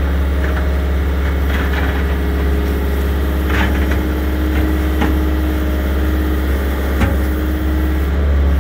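Excavator's diesel engine running steadily, with a few short knocks about halfway through and near the end.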